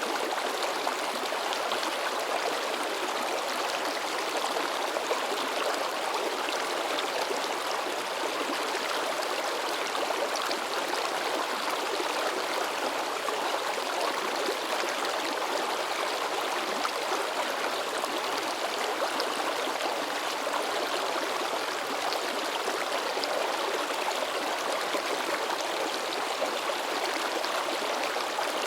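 Shallow river babbling and splashing over rocks, a steady, even rush of running water.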